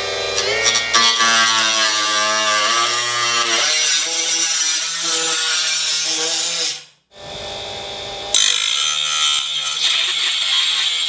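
Ryobi cordless cut-off tool running, its small abrasive wheel cutting into thin aluminium baffle sheet: a steady motor whine with a gritty hiss. It stops briefly about seven seconds in, then starts again and cuts louder.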